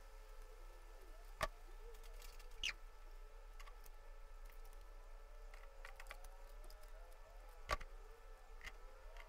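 A few sharp, faint clicks of a ratchet and socket extension against the engine as the spark plugs are being loosened, two louder clicks about a second and a half in and near the end, over a quiet background with a low hum.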